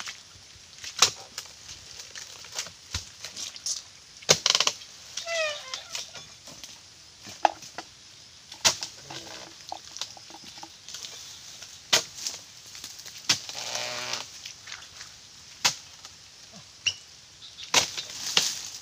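Long-handled palm harvesting chisel (dodos) stabbing and chopping into the woody frond bases of an oil palm: sharp, irregular strikes every one to three seconds, with rustling as cut fronds come down.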